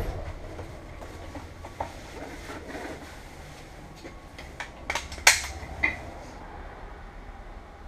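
School bus VT365 V8 turbodiesel running with a steady low rumble, heard from the driver's seat. About five seconds in comes a short cluster of sharp clicks and clatters, one crack louder than the rest.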